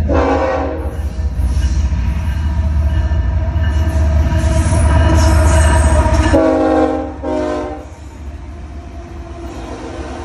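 Union Pacific diesel freight locomotives passing close with their engines running heavily and a multi-note air horn sounding several blasts, the last two short ones about six and a half and seven and a half seconds in. After that the engine sound drops away, leaving the rolling of the double-stack container cars on the rails.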